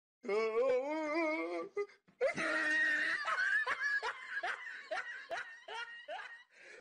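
A person laughing hard: a long, wavering high-pitched laugh, then a run of about ten short bursts of laughter that trail off.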